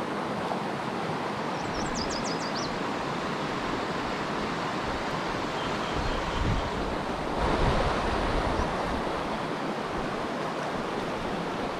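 Steady rushing of a fast stream running high with spring runoff, with low gusts of wind on the microphone about six and eight seconds in.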